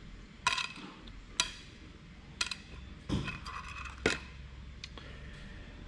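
Small metal tools and tins clinking and knocking on a stone benchtop as they are picked up and moved, half a dozen separate sharp clinks spread through.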